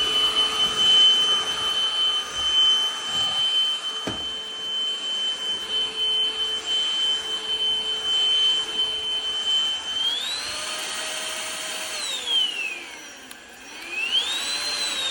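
Cordless stick vacuum motor running with a steady high whine. About ten seconds in the pitch climbs, as if switched to its higher power mode. Near the end it winds down and spins back up.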